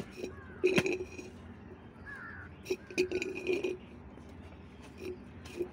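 A knife striking and cutting into a green coconut's husk and shell, several sharp knocks at uneven intervals, as the coconut is cut open to get at the soft kernel.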